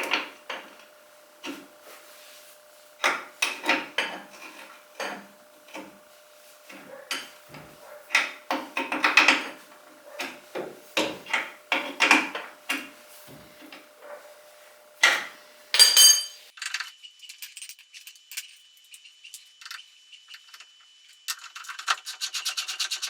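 Hand tools working the lower shock-mount bolt: irregular bursts of metal clicking and scraping as the wrench and socket turn the 15 mm nut and 18 mm bolt. A single ringing metal clink comes about two-thirds of the way in, and fast, even clicking starts near the end.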